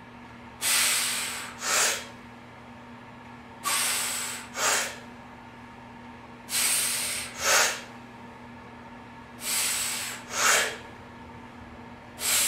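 A man breathing hard through repeated resistance band bicep curls. Each rep brings a longer hissing breath followed by a short sharp one, and the pairs repeat about every three seconds.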